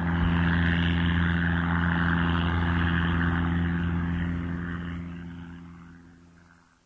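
De Havilland Tiger Moth biplane's four-cylinder inverted inline engine and propeller running at a steady pitch, fading out over the last two seconds.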